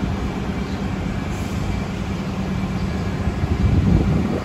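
City bus engine idling at the stop: a steady low rumble with a constant hum, swelling briefly about three and a half seconds in.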